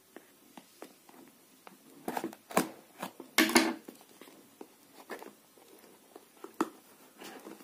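Handling noise from a cardboard smartphone box turned over in the hands: scattered taps and clicks with a few short scrapes and rubs, the longest about halfway through.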